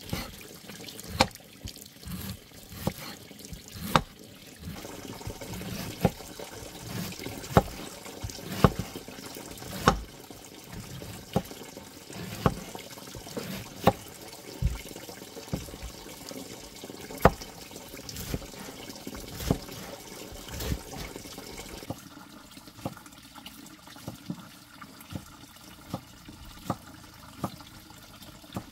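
Water running or splashing, with sharp knocks about once a second that are fainter in the last several seconds.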